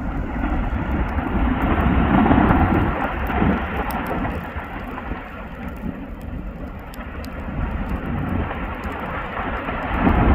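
Erupting Fagradalsfjall volcano: a continuous deep, rushing rumble from the vent that swells about two seconds in and again near the end.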